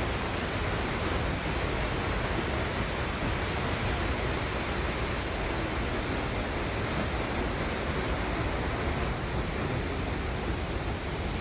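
Skógafoss waterfall pouring: a steady, even rush of falling water.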